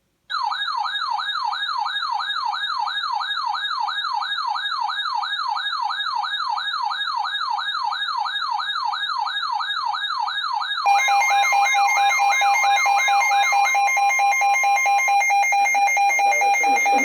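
Weather radio alert tones: an electronic siren-like tone warbling up and down about three times a second. About eleven seconds in, a louder rapid pulsed beeping and a steady tone join it, and the warble stops a few seconds later. The tones herald an incoming warning broadcast.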